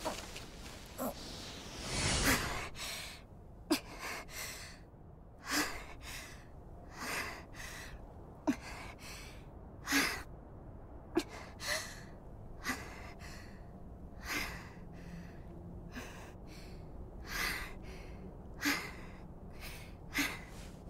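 A person breathing heavily, with gasping breaths in and out about once a second.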